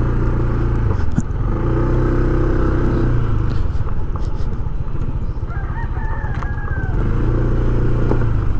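A vehicle engine running steadily nearby, its hum swelling and easing, while a rooster crows once, about five and a half seconds in.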